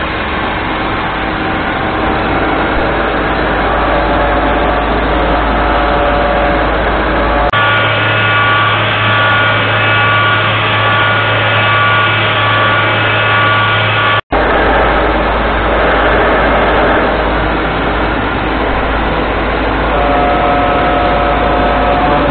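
UDM-2216 three-axis CNC machining center running with its spindle and tool at work on a large metal plate: steady machine noise with several held high whines. The sound changes abruptly about seven seconds in and again about fourteen seconds in, with a split-second dropout at the second change.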